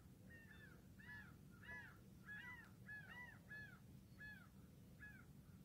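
A bird calling faintly in the background: a run of about a dozen short calls, each rising and then falling in pitch, repeated irregularly every half second or so.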